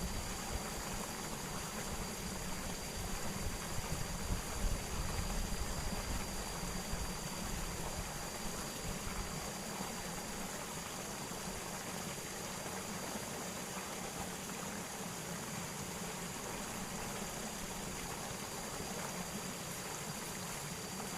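Steady rushing of flowing water with a thin, steady high-pitched whine above it. A few low bumps come about four to five seconds in.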